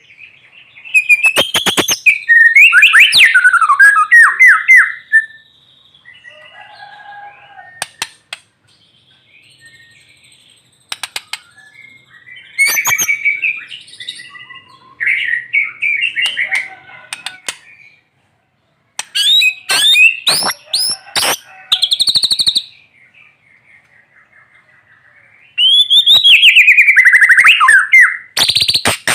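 White-rumped shama singing in loud phrases of sweeping whistles and rapid, sharp staccato notes, with short quieter pauses between phrases.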